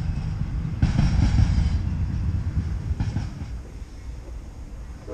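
Norfolk Southern double-stack freight train rolling past, a heavy low rumble of wheels on rail with louder surges about a second in and again near three seconds, then fading away.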